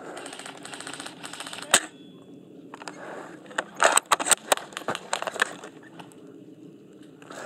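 Airsoft guns firing: one sharp crack about two seconds in, then a rapid cluster of cracking shots about four to five and a half seconds in.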